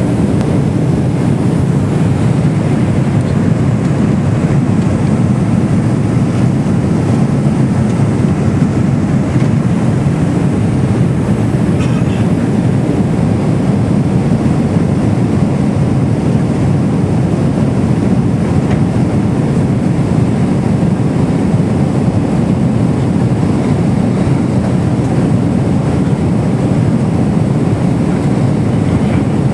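Steady, deep roar of cabin noise inside a Boeing 777-300ER airliner in flight, the even rush of airflow and engine noise with no change throughout.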